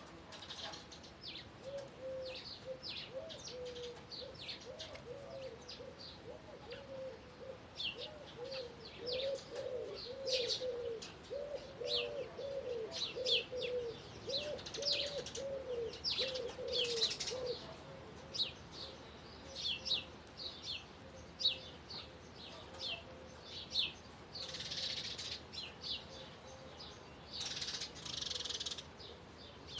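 Birdsong: small birds chirping and twittering in short high notes throughout. A low cooing call in quick arched notes runs underneath for a little over half the time. Two short hissing bursts come near the end.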